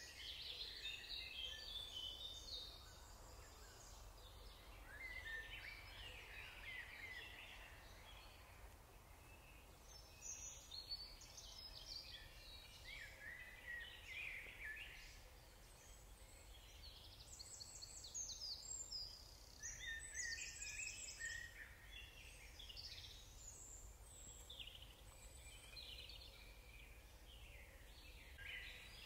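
Several songbirds singing faintly, with short chirps and trills coming one after another, over a low steady hum.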